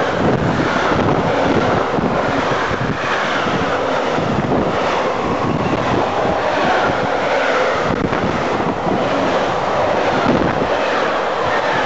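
Train running on the rails: a loud, steady rushing noise, with wind buffeting the microphone.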